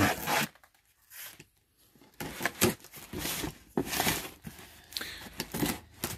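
Box cutter slicing and scraping through packing tape on a cardboard box, then tape and cardboard tearing, in a string of short uneven strokes that begin about two seconds in.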